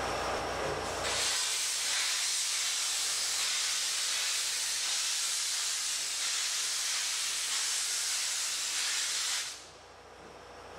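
Steam locomotive C57 180 blowing off steam: a loud, steady hiss that starts suddenly about a second in and cuts off abruptly near the end.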